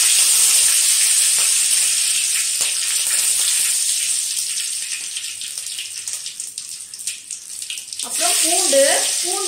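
Curry leaves frying in hot oil in an aluminium kadai: a steady sizzle with faint crackles that dies down over several seconds. A voice is heard near the end.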